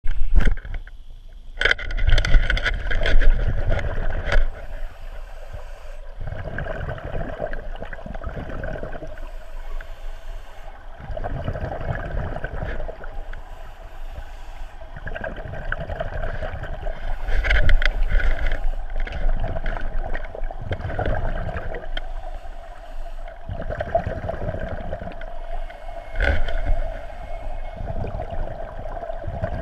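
Scuba breathing heard underwater through a regulator: bursts of exhaled bubbles gurgling and rumbling every few seconds, with quieter pauses between breaths and a steady mid-pitched hum underneath.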